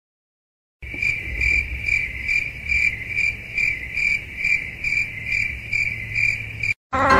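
Cricket chirping: a steady high trill that swells in even pulses about two and a half times a second, over a faint low rumble. It starts and stops abruptly.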